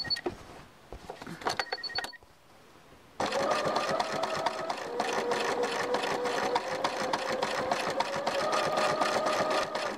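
Bernina electric sewing machine stitching steadily for about seven seconds, a rapid run of needle strokes over the motor's hum, starting about three seconds in and stopping just before the end. A few clicks and two short beeps come before it.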